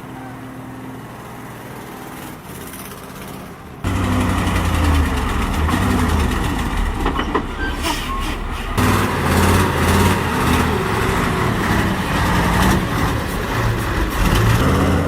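Heavy truck engine running hard under load, of a truck stuck in deep mud trying to drive free. A quieter steady hum gives way about four seconds in to the loud engine, with an abrupt shift near nine seconds.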